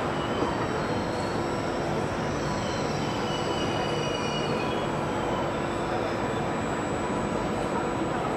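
Trenitalia Frecciarossa high-speed electric train rolling slowly into a station, a steady rumble with a low hum. A faint, thin, wavering squeal comes and goes for a few seconds in the middle.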